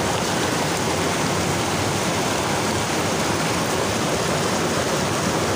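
Fast-flowing rocky stream rushing over stones, a steady, loud rush of water.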